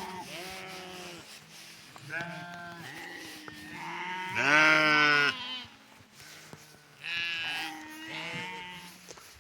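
A flock of sheep bleating, several animals calling over one another. The loudest, a long bleat, comes about halfway through.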